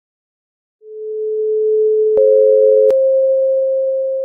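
Electronic pure tones with no overtones. A steady tone fades in about a second in. A second, slightly higher tone joins with a click a little past two seconds. The lower tone cuts off with a click near three seconds, leaving the higher tone sounding alone.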